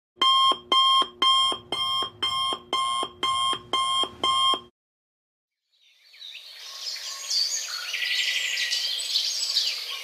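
Electronic alarm clock beeping, about ten beeps at roughly two a second, stopping abruptly a little before halfway. After a short gap, birds chirping fade in from about six seconds in.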